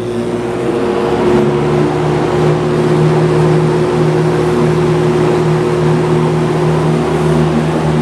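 Lakewood S-223 box fan with its Westinghouse motor speeding up to high and then running steadily: a rush of air over a pronounced motor hum. The owner calls the hum quite noticeable and is unsure whether the motor is healthy.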